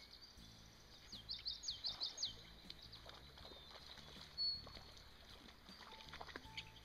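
A small songbird singing: a quick run of about seven high, falling whistled notes about a second in, then a single short high note midway.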